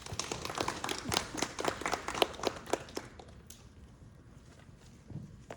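Small audience clapping, many sharp claps that die away about three seconds in.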